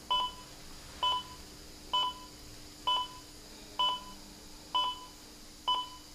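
Bedside heart monitor beeping with the patient's pulse: seven short, high beeps at an even pace of about one a second.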